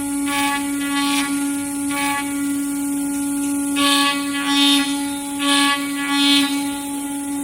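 CNC router running: the spindle gives a steady pitched tone, and a louder hissing cutting noise swells and fades several times, about every second or two, as the bit passes through the work.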